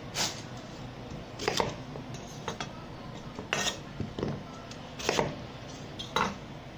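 Dishes and cutlery clinking and clattering, about eight sharp knocks at irregular moments over a steady hiss.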